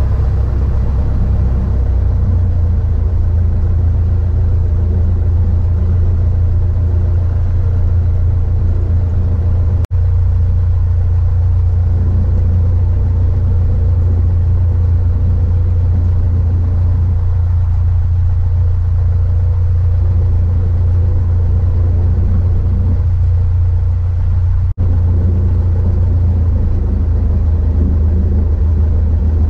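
Cessna 152's four-cylinder Lycoming O-235 engine and propeller running at taxi power, a steady low drone heard from inside the cockpit.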